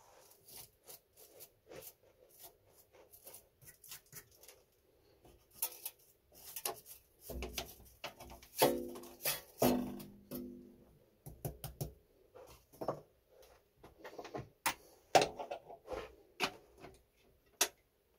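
Small machined metal turbine parts, a main shaft and its bearings, being handled and test-fitted, giving irregular clicks and knocks with a brief ringing tone about halfway through.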